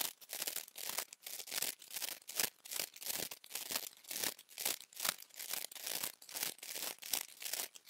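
Trading-card packet wrappers torn open and crinkled one after another: a quick, unbroken run of short rustling tears, about four a second.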